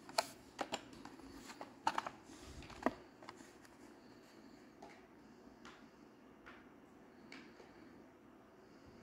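Hot Wheels blister packs, plastic bubbles on cardboard cards, clicking and crackling as they are handled and swapped in the hands. A cluster of sharp clicks comes in the first three seconds, then fainter ones.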